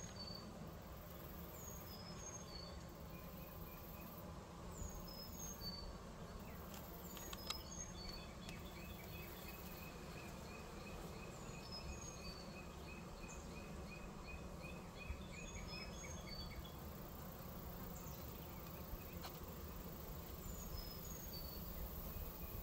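Honeybees humming around an open Layens hive. Over the hum, a bird repeats a short phrase of high falling whistled notes every couple of seconds, and a thin trill runs for several seconds in the middle.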